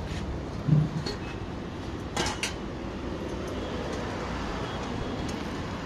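Steady low rumble of street traffic, with a couple of short clicks about two seconds in.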